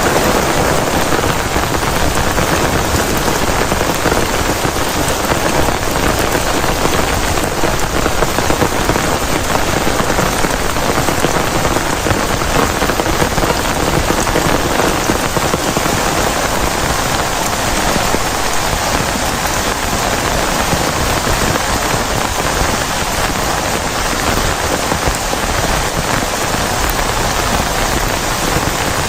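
Heavy rain falling steadily, a dense, even patter with no letup.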